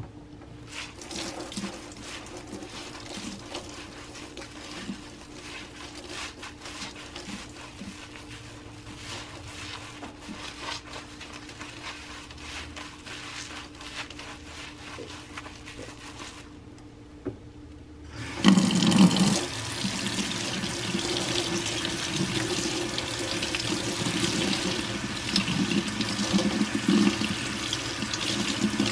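Hands squeezing and kneading a soapy, foam-filled sponge, a soft wet crackle of popping suds. After a short pause a kitchen tap is turned on and water runs steadily over the sponge into a stainless-steel sink, loudest as the tap opens.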